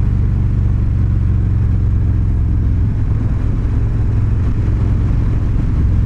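Indian Chieftain Dark Horse's Thunderstroke 116 V-twin running under way at cruising speed, with a steady low pulsing exhaust note and wind rush. It eases off slightly for a moment about three seconds in.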